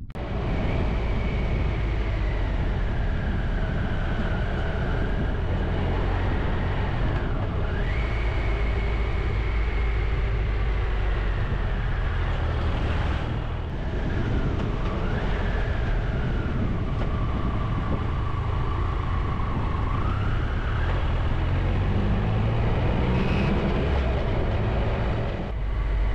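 Motorcycle engine and wind noise while riding. The engine's pitch sags and climbs again several times as speed and gears change.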